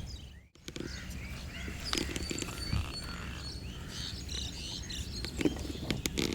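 Birds chirping and calling in the open, with a few light knocks. The sound cuts out briefly about half a second in.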